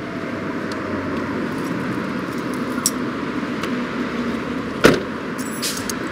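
A car door slams shut with a single sharp thud about five seconds in, followed by a few light high clicks, over a steady background of road and street noise.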